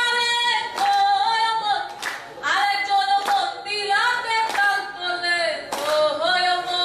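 A woman singing a Bengali folk song into a handheld microphone, holding long notes that slide and bend between pitches.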